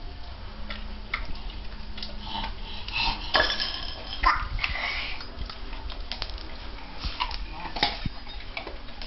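Dry dog kibble rattling and clinking against a metal dog bowl as it is handled, in scattered irregular clicks with a few louder clinks.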